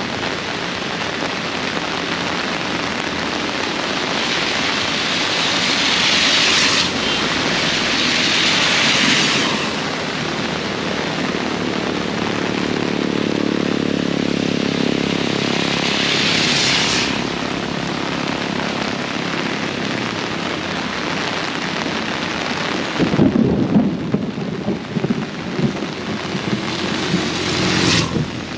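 Heavy tropical rain pouring steadily, swelling louder several times as the wind gusts. An engine hum passes through the middle, and thunder rumbles over the last few seconds.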